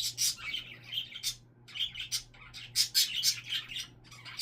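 Pet parrot chattering: clusters of short, scratchy, high chirps and squeaks with brief pauses between them.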